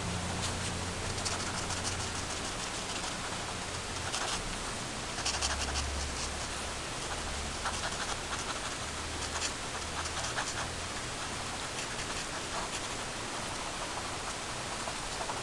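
Fine-tip pen scratching on paper in short, irregular strokes, over a steady hiss and a low hum.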